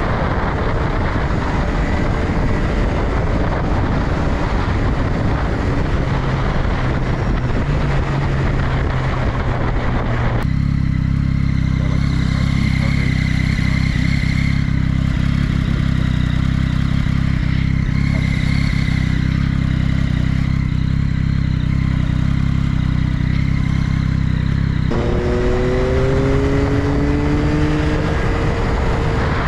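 Yamaha XSR900's three-cylinder engine running while riding, under heavy wind rush. About ten seconds in the sound changes abruptly to a deep, muffled, steady rumble. It changes back near the end, where the engine note climbs as the bike accelerates.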